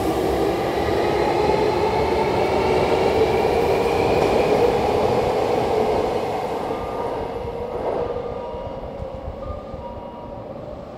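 Hankyu electric commuter train accelerating away, its motor whine climbing slowly in pitch over the rumble of the wheels on the rails, then fading over the last few seconds as it draws away.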